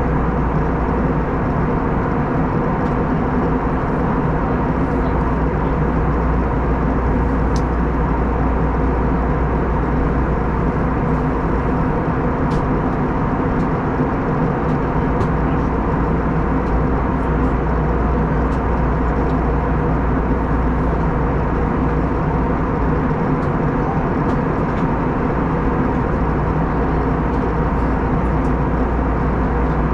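Steady cabin noise inside an Airbus A321neo in flight at high altitude: a constant rush of airflow and engine drone with several steady low hums.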